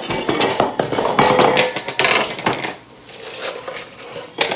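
Kitchenware clattering and clinking as things are handled and moved about on a kitchen counter: dense knocks and rattles for the first two and a half seconds, then a few lighter knocks.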